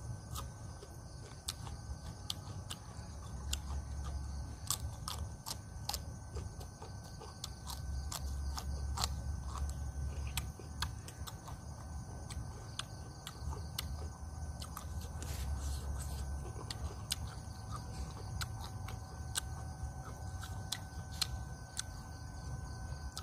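A person chewing food close to the microphone, with many irregular clicking mouth sounds. Crickets chirr steadily in the background.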